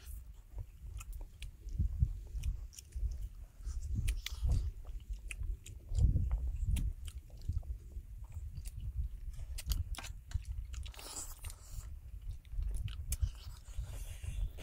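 Close-miked eating: people chewing and biting into fried catfish, with wet smacking and many short sharp clicks of spoons and a fork against a metal platter.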